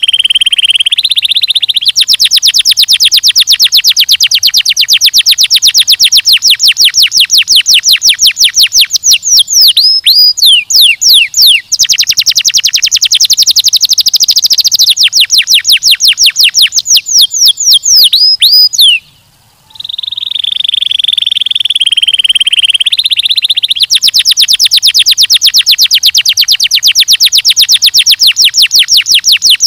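Domestic canary singing a long, loud song. It opens with a rolling buzzy trill, then runs of fast repeated notes with a few quick falling whistles about ten seconds in. After a brief pause about two-thirds through comes another buzzy trill, then more fast repeated notes.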